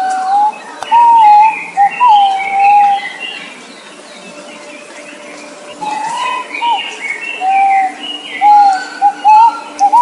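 Bird calls: loud, clear whistled notes, some long and level and others short and wavering, with higher chirps from other birds over them. The calling pauses for a couple of seconds near the middle, then resumes in quick short notes.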